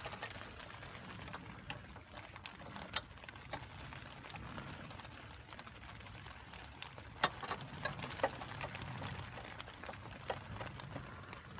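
Scattered light metallic clicks and knocks of a brake-pipe spanner working the brake-line union nuts on an ABS pump, a couple of sharper ones about seven and eight seconds in, over a low steady hum.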